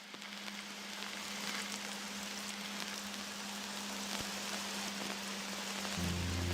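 Steady rain hiss with scattered faint drop ticks over a constant low hum. Low sustained music notes come in just before the end.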